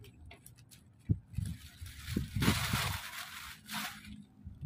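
Plastic bags crinkling and rustling as they are handled, with the loudest crinkle a little over two seconds in, and a few low knocks.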